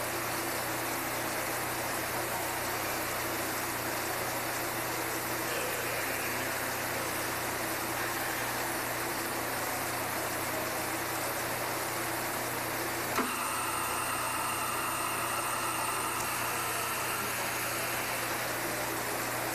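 Large industrial thermoforming machine running through its cycle: a steady mechanical hum and hiss, with one sharp click about 13 seconds in, followed by a few seconds of higher whining tones.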